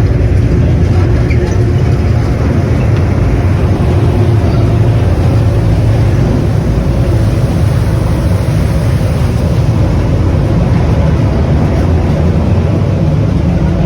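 Steady low rumble of a tour boat's engine under way, mixed with wind noise on the microphone.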